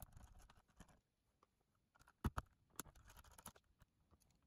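Faint scratching and small clicks of a screwdriver working tiny screws out of a cassette player's circuit board, with two sharp clicks close together a little over two seconds in and a smaller one just after.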